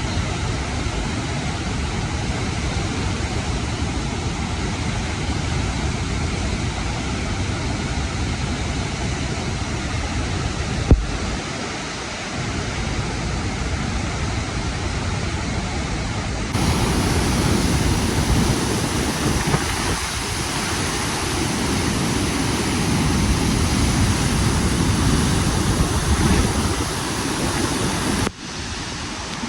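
Steady rushing noise of River Nile water, mixed with wind on the microphone. There is a click about 11 seconds in, and the noise turns louder and brighter about 16 seconds in.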